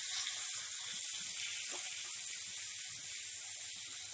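Chopped onion, curry leaves and green chilli sizzling steadily in hot oil in a kadhai as they are sautéed.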